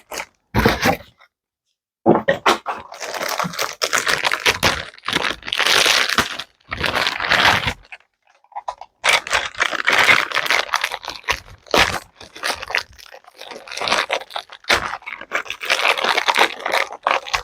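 Toy packaging being opened by hand: cardboard and plastic tearing, crinkling and rustling in several stretches, with a few sharp clicks and knocks of plastic parts being handled.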